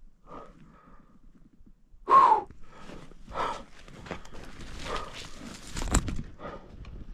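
A person breathing hard, in heavy rhythmic breaths, along with footsteps in snow; the loudest breath comes about two seconds in, and there is a sharp knock about six seconds in.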